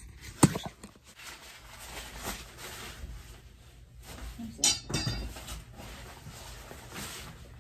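Handling noises: a sharp knock about half a second in as the phone filming is set down, then light clicks and rustling, with a louder rattling clatter a little before five seconds in.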